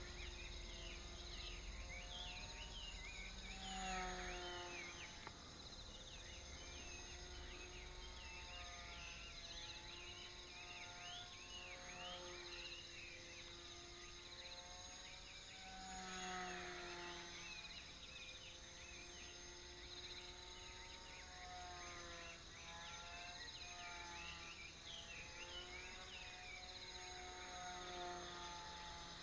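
Small electric motor and propeller of a sub-100 g tethered RC plane running steadily in circles, a faint hum whose pitch wavers and which swells about every twelve seconds as the plane comes round. Steady insect calls carry on underneath.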